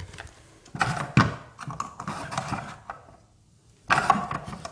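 A music box being handled, its mechanism clicking and rattling in short bursts while no tune plays.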